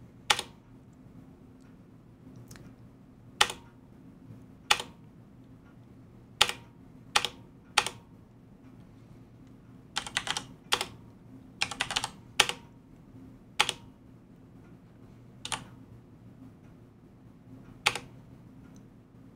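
Computer keyboard keystrokes: single sharp key presses every second or two as terminal prompts are answered, with two short quick runs of typing a little after ten seconds in as a password is entered. A low steady hum lies beneath.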